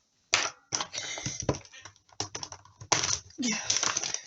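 Craft tools and card stock handled on a tabletop: an irregular run of taps, clicks and paper rustling as pieces are picked up and set down.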